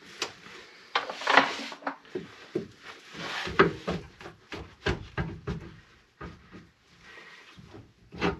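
A wooden plank used as a lever on a car's front lower suspension arm, knocking, creaking and scraping in a string of sharp knocks, with harsher noisy stretches about a second and three seconds in. The arm is being pried down to separate the lower ball joint from the steering knuckle.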